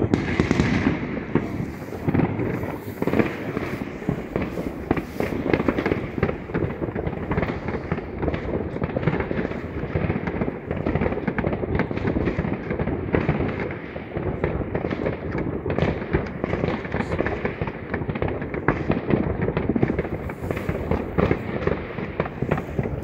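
Many fireworks going off at once: a dense, unbroken run of overlapping bangs and crackling reports.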